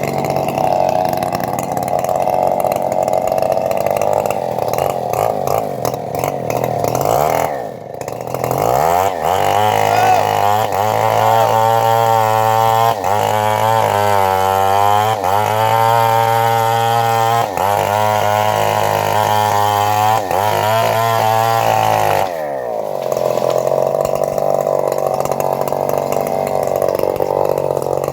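Engine of a homemade bandsaw mill running while sawing teak. It runs at a lower speed, revs up about eight seconds in and holds a steady higher pitch for about thirteen seconds, then drops back to the lower speed for the last few seconds.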